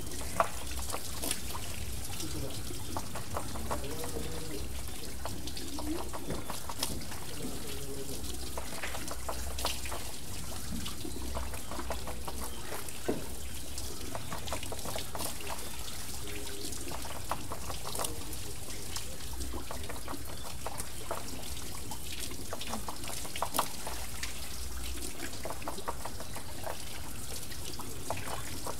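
Water pouring and trickling off a turning water wheel: a steady splashing with many small sharp drips and a few louder splashes.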